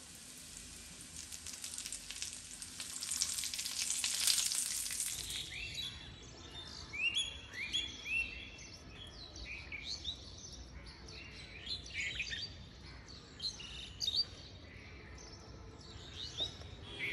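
Hot oil poured onto chili flakes, sizzling and swelling for about five seconds before cutting off. After that, birds chirping in short, repeated chirps.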